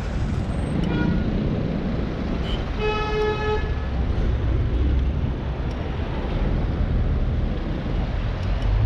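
Steady road traffic noise from cars, with one short car horn toot about three seconds in.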